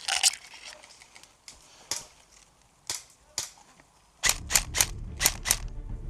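Airsoft guns firing single shots as sharp pops: a few scattered shots in the first four seconds, then a quicker string of about six shots.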